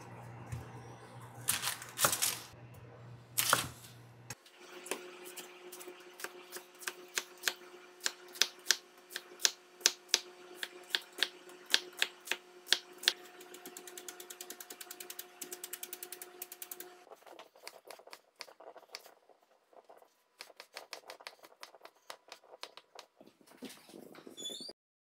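Chef's knife chopping an onion on a wooden cutting board: a run of sharp knocks about two a second, speeding up into rapid chopping around the middle, over a faint steady hum.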